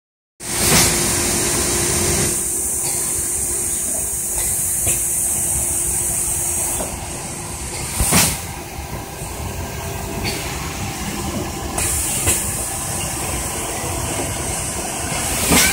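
Thermoforming packaging machine running: a steady mechanical hum with a high hiss that comes and goes, and a sharp thump about every seven to eight seconds as the machine cycles.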